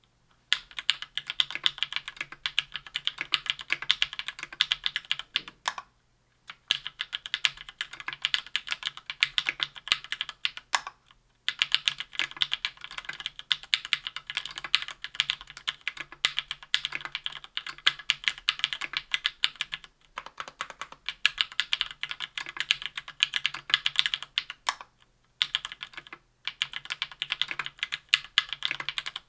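Fast typing on a KBDfans Tofu 60% aluminium keyboard with lubed SP-Star White Meteor 57g linear switches on an aluminium plate, under GMK Triumph Adler keycaps. The keystrokes come in runs with several brief pauses, starting about half a second in.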